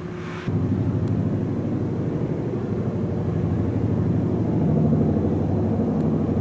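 Hippopotamus calling: a low, rough, pulsing rumble that starts suddenly about half a second in and grows slightly louder.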